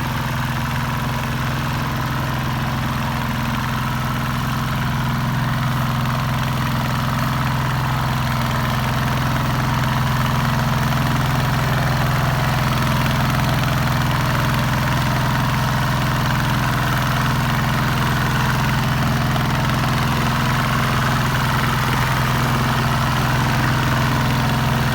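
Diesel engine of farm machinery running steadily at a constant speed, getting a little louder about five to ten seconds in.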